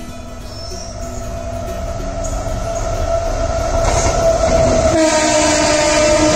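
A train's horn held in one long, steady blast over the rumble of a train, growing steadily louder as it approaches. A second, lower horn tone joins about five seconds in.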